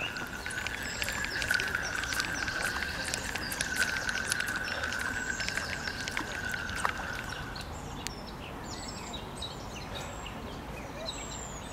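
Birds chirping over a steady, slightly wavering high whine that stops about eight seconds in, with many short sharp ticks until about seven seconds in.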